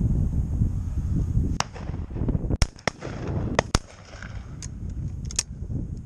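Over-and-under shotgun firing: a loud shot about two and a half seconds in, a second shot a moment later, and two more sharp cracks about a second after. Wind buffets the microphone before the shots.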